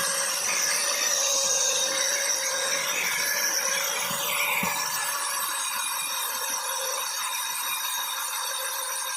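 4-inch angle grinder running at speed with an abrasive polishing pad pressed against a motorcycle engine's metal casing: a steady, high-pitched rubbing whine.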